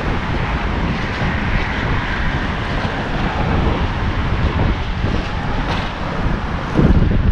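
Wind buffeting the microphone, a steady rushing noise with uneven low rumbles, growing louder about seven seconds in.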